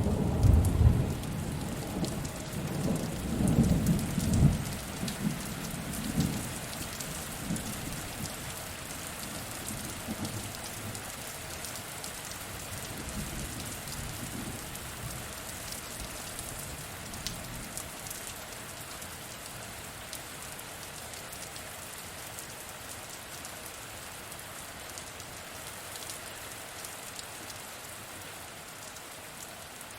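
Steady heavy rain falling, with a rolling thunderclap at the start that rumbles and fades away over the first several seconds, leaving only the even patter of rain.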